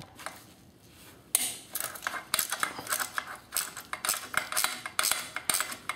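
Metal clinking and rattling as the exhaust muffler is worked loose and pulled off a two-stroke bicycle engine's cylinder: a quick, irregular run of clicks and clanks starting about a second and a half in.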